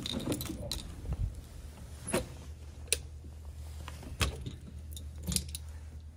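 A bunch of keys jangling at a doorknob lock, with a handful of separate sharp clicks and knocks from the key, lock and door.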